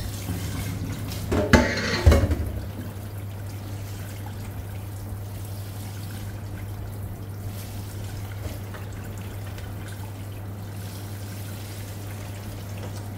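Tap water running steadily onto diced pomelo pith in a plastic colander at a kitchen sink while hands rub and squeeze the pieces to rinse them. About one and a half to two seconds in, a stainless-steel bowl knocks loudly a couple of times as it is put down in the sink.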